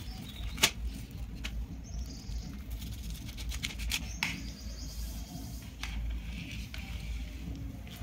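A kitchen knife cutting through a set jelly fruit cake and lifting a slice off the plate. The blade makes scattered light clicks and taps, with a cluster of them near the middle.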